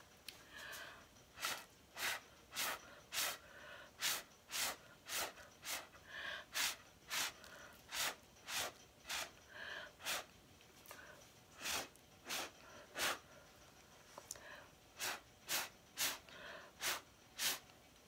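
Short, sharp puffs of breath blown through a straw, about two a second in runs broken by brief pauses, pushing wet acrylic pour paint across a canvas.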